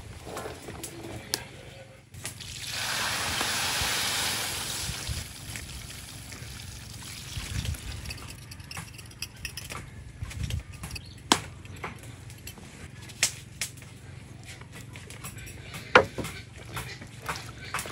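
Milky liquid poured into a metal wok of taro cubes, an even splashing hiss lasting about three seconds. It is followed by scattered small clinks and knocks of containers against the wok as seasonings are tipped in.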